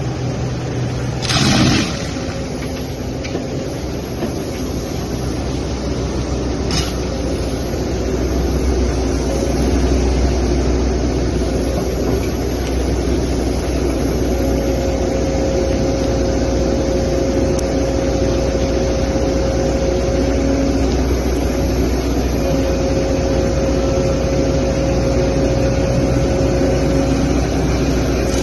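Excavator with a hydraulic mulcher attachment running steadily under a low engine rumble, with a short burst of noise about a second and a half in; a steady whine sets in about halfway through.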